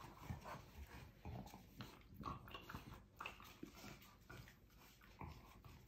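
Faint, scattered short noises from French bulldogs playing with a puppy: small dog sounds and movement, coming irregularly and never loud.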